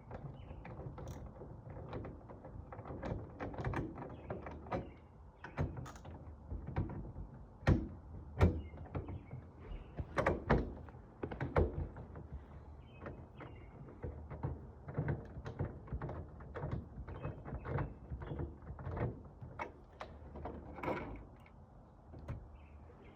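Irregular clicks, knocks and rattles of hand work on a sliding-door lock: screws being taken out and the metal lock parts handled, with a few louder knocks about eight and ten to twelve seconds in.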